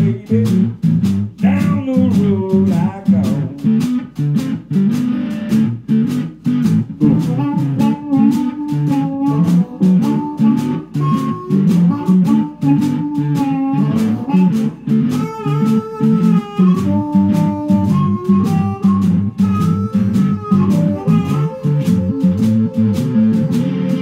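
Small live blues band playing a song: a drum kit keeps a steady beat under the guitar, while a harmonica holds long melody notes above.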